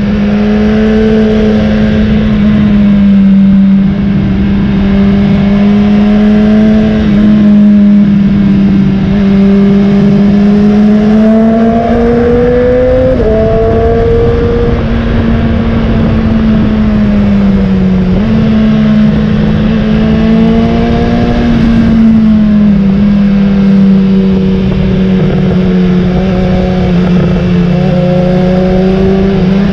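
BMW S1000XR's inline-four engine running at speed under the rider, its pitch rising and easing off with the throttle, with sudden drops near the middle and later, over a rush of wind noise.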